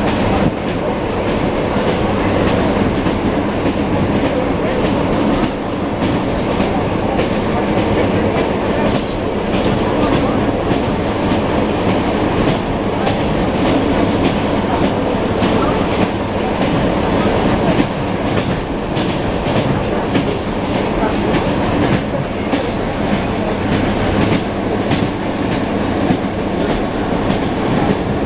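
Wheels of an ED9M electric multiple unit clacking over rail joints, heard from inside the carriage over the steady running rumble of the moving train.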